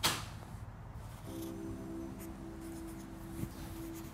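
Felt-tip marker scratching in short strokes on a paper notepad as a check mark and a word are written. A brief loud burst of noise comes right at the start.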